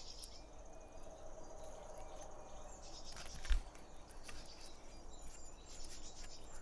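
Insects chirring steadily, with a single dull thump about three and a half seconds in.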